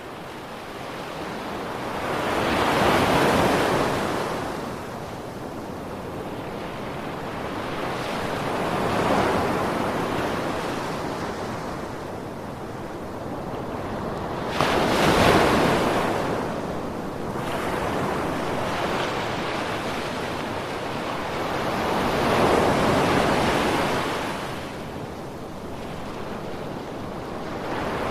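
Ocean waves breaking and washing in, swelling and ebbing about every six seconds, with one wave crashing in more sharply about halfway through.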